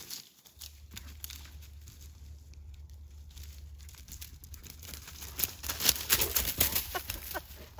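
Dry grass and dead leaves rustling and crunching underfoot as a dog runs through them. The crackling is faint at first and grows louder and denser in the second half as the dog comes close.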